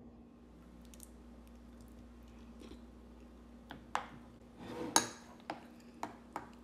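A soup spoon clinking and scraping against a ceramic soup bowl a few times in the second half, as soup is scooped up, the loudest clink about five seconds in. Before that only quiet room tone with a faint steady hum.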